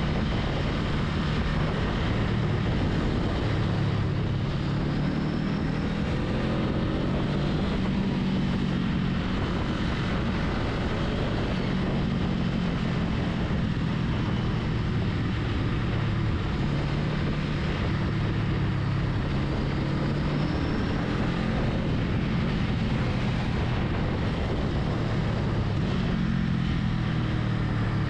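Honda Rebel 500's parallel-twin engine running at a steady cruise, its pitch drifting slightly up and down, over a steady rush of wind and road noise.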